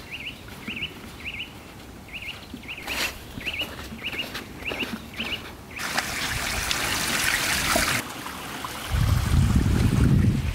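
A small bird repeating a short chirp over and over, about twice a second; then, about six seconds in, water pouring from three spring spouts into a stone basin with a steady splashing hiss for about two seconds. Near the end a loud low rumble takes over.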